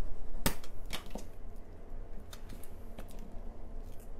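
A hand tool rubbing a rub-on transfer sheet onto a wooden cutting board: scratchy rubbing with a few sharp clicks, the loudest about half a second in.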